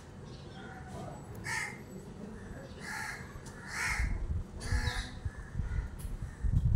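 A crow cawing repeatedly, short calls about a second apart, with a low rumble coming in over the second half.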